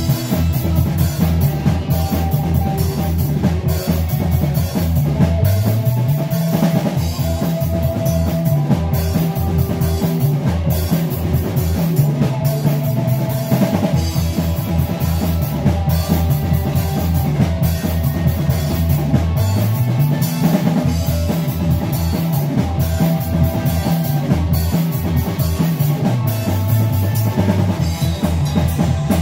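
Live rock band playing: a drum kit keeping a steady beat under a bass guitar line that moves up and down, with electric guitar.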